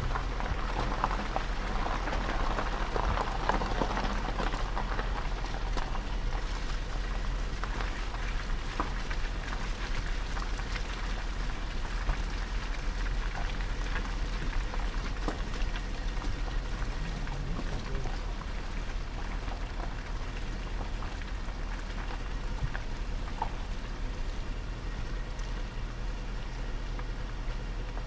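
Rain ticking and pattering on a vehicle over a low steady rumble, the drops densest in the first few seconds.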